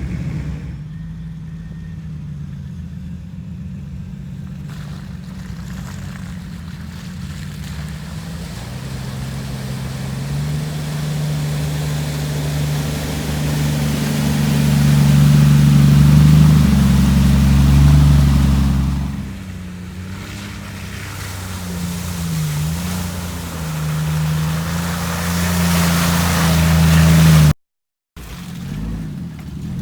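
Off-road vehicle engine running under load and revving, its pitch rising and falling with the throttle. A rushing hiss builds over it toward the end, then the sound cuts off abruptly for about half a second.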